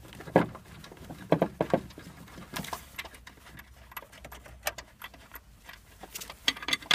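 Loose metal bolts clinking and rattling as they are handled and threaded by hand into a new front engine mount: an irregular scatter of light metallic clicks, with a few sharper ones about half a second in and again around one and a half seconds.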